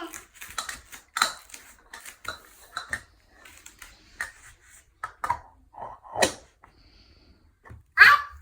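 Cutlery clinking and tapping against dishes: a string of irregular light knocks, a few ringing briefly, the loudest near the end.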